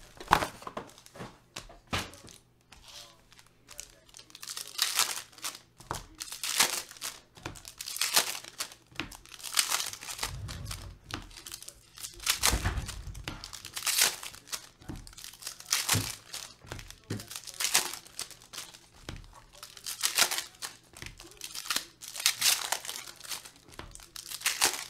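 Foil wrappers of Donruss football trading-card packs crinkling and tearing as the packs are ripped open one after another, in repeated bursts every second or two.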